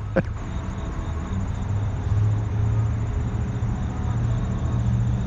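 Steady low hum of road traffic or an engine, with an even background hiss.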